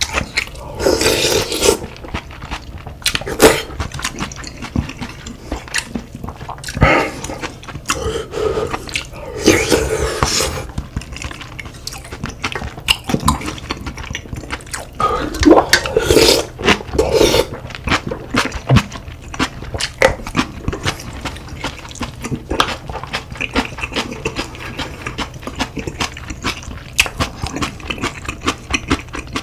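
Close-miked eating of soup, rice and kimchi: irregular chewing and biting sounds, with utensils clicking against the dishes.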